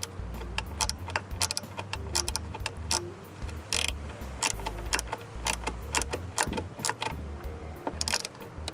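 Small metal hand tools being handled: irregular sharp metallic clicks and clatter of insert bits, bit holders and a gear wrench.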